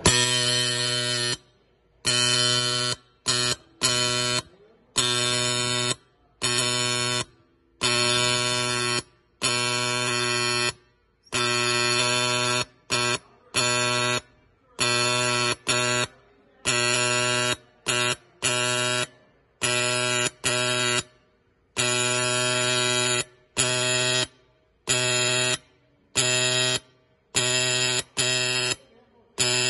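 Portable dot peen marking machine hammering its stylus pin rapidly into a metal plate as it stamps a row of VIN-style letters. It gives a steady, even-pitched buzz in bursts of about half a second to a second, with short pauses between them as the head moves between strokes and characters.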